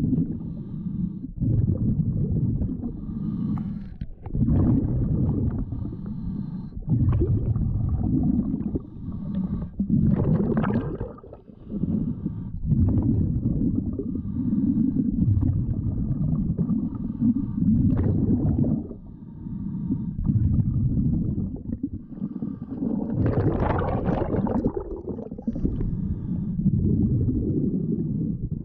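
A scuba diver breathing through a regulator, heard underwater: long, low, rumbling, gurgling stretches of exhaust bubbles, broken by short pauses for each inhale. A louder, brighter bubble burst comes about ten seconds in and again near the end.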